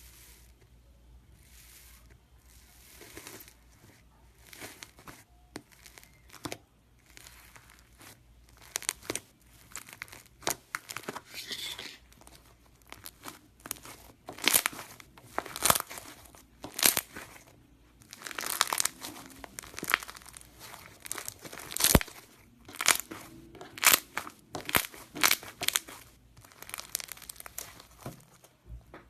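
Iceberg slime's hardened top crust being pressed and broken, giving irregular crisp crackles and crunches that come thicker from about a third of the way in.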